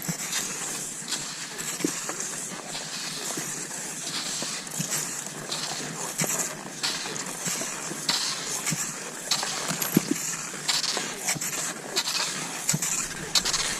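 Cross-country skis swishing and scraping over snow in a steady stride rhythm, a stroke roughly every two-thirds of a second, with a few sharper clicks between.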